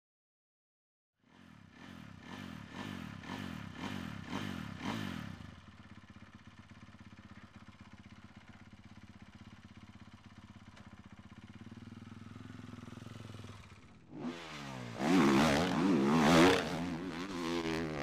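Four-stroke motocross bike engine starting about a second in with a string of quick throttle blips. It then idles steadily for several seconds, and from about 14 seconds it revs hard and much louder, rising and falling in pitch repeatedly.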